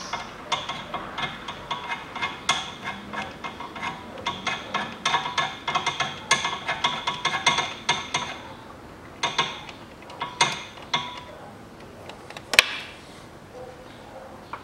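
Hand ratchet wrench clicking in quick runs as a bolt is turned, steady for about eight seconds, then a few shorter runs and one sharp metallic click about twelve and a half seconds in.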